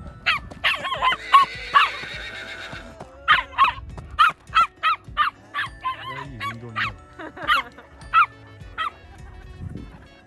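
Dogs barking at each other across a fence: a long string of sharp barks in quick runs, with a short break about two seconds in.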